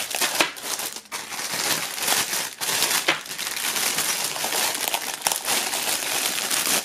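Clear plastic film crinkling and crackling continuously as it is handled and pulled off a fabric shoulder bag.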